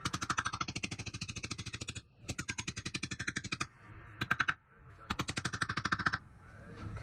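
Rapid, evenly spaced mechanical clicking from a hand or power tool, in four bursts of roughly fourteen clicks a second with short pauses between them.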